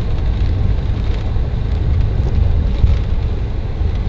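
Steady low rumble of a coach-style shuttle bus driving along, engine and road noise heard from inside the cabin.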